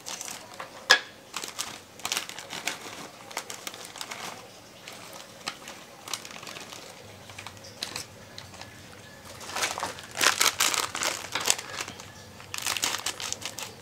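Plastic snack bag crinkling as it is handled, tipped and shaken out, with a sharp snip of scissors about a second in. Louder bursts of crinkling around ten seconds in and again near the end.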